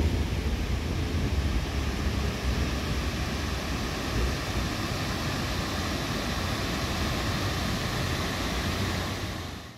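Tram rolling along the track: a steady low rumble with a noisy hiss over it, fading out at the very end.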